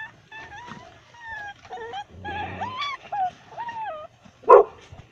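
A litter of puppies whining and yipping as they play-fight, with many short high-pitched calls bending up and down and overlapping. Then comes one loud, short bark about four and a half seconds in.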